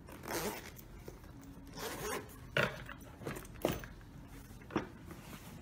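Zipper on a small hard-shell carry case for digital video glasses being run along in short rasping pulls, followed by three sharp knocks about a second apart as boxes are set down in a foam-lined equipment case.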